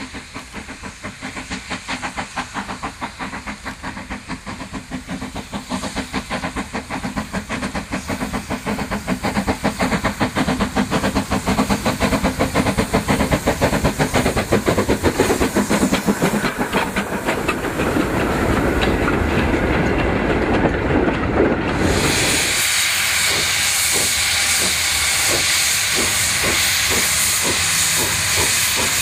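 Hudswell Clarke 0-6-0ST saddle-tank steam locomotive working a coal train: its rhythmic exhaust beats grow louder as it approaches, and its wagons roll past close by. About two-thirds of the way in the sound changes suddenly to a loud steady steam hiss over the continuing exhaust beats.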